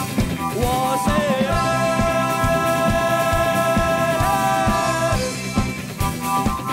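Rock band playing live: a male singer slides up into one long belted note, held for several seconds, over electric guitars and a drum kit.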